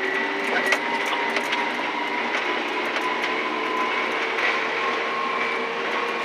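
Diesel engine of a Komatsu 400 articulated dump truck running under load, heard from inside the cab, its whine creeping slightly up in pitch as the truck gathers speed. Frequent small clicks and rattles sound over it.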